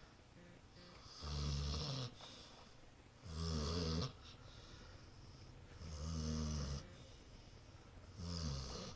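A dog snoring: four low snores, one every two to two and a half seconds, each lasting under a second.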